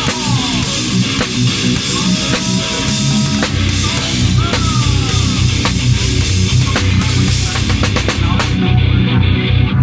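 A drum kit played with bass drum and cymbals, over rock music with guitar.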